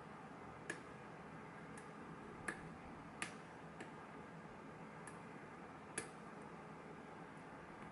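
Faint, irregular small clicks, about eight over several seconds, of a lock pick and tension wrench working in a pin tumbler lock.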